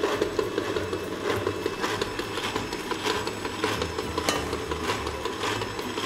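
Stand mixer running, its beater working thick choux paste in a stainless-steel bowl as the eggs are worked in: a steady motor hum with regular knocks a little under twice a second.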